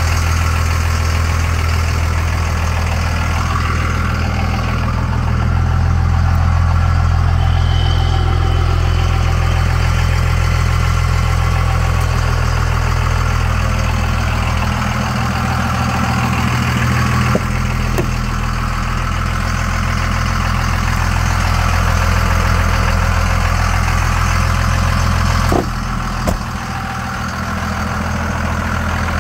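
A 1998 Dodge Ram 3500 pickup's engine idling steadily with a deep, even hum. A short click comes about 25 seconds in, after which the hum briefly drops.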